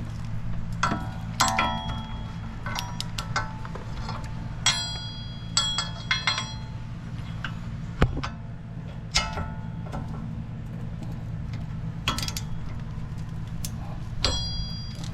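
Steel tools and metal parts clinking and clanking, with a dozen or so sharp, ringing knocks at irregular intervals, as the rear wheel hub's bolts are worked loose and the hub assembly is handled. A steady low hum runs underneath.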